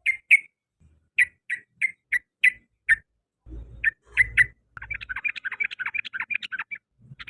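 Yellow-vented bulbul (trucukan) calling: a string of short, sharp chip notes about three a second, then, just past halfway, breaking into a fast chattering run of rapid notes, its ropel song.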